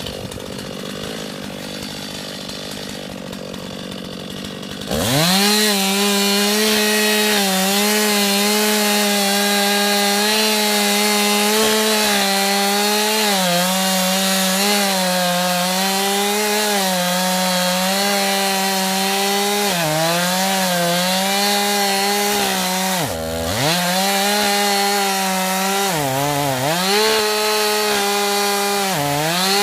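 A Stihl MS 291 two-stroke chainsaw runs quietly, then about five seconds in is throttled up to a loud, steady, high-pitched scream and held at speed through the cut. Near the end the engine note sags briefly three or four times before recovering.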